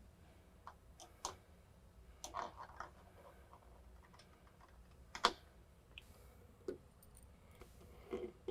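Scattered light clicks and taps of hand work, the back plate and its small Phillips-head brass screws being handled and fitted, with one sharper knock about five seconds in.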